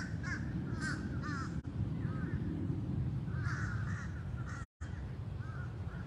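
Birds calling: many short, harsh cawing calls in quick succession, sometimes overlapping, over a steady low rumble. The audio drops out for an instant just before five seconds in.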